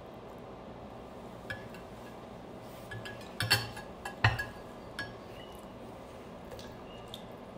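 Metal spoon clinking against a ceramic bowl, and the bowl and its plate knocking as they are shifted on the table: a handful of light, briefly ringing clinks, the two loudest close together around the middle.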